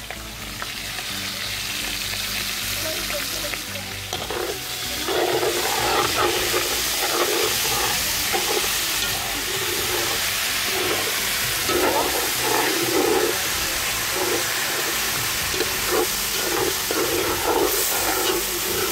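Sliced longaniza sausage and fresh greens frying with a steady sizzle in a cast iron pot. A spoon stirs and scrapes against the pot over and over from about four seconds in, and the sizzle grows louder a little after.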